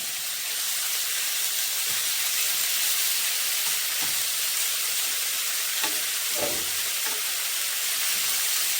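Thinly sliced beef stir-frying in a pan, sizzling steadily, with a few soft knocks from a utensil stirring it around the middle.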